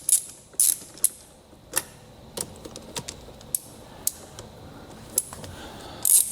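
Ratchet wrench with a 10 mm socket clicking while a car battery terminal nut is loosened. A few quick clicks at first, then slower scattered clicks, then another quick run near the end.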